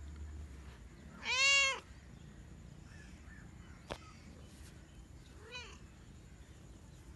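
Long-haired white cat meowing: one loud meow about a second in, rising then falling in pitch, and a shorter, fainter meow later. A single sharp click comes between the two.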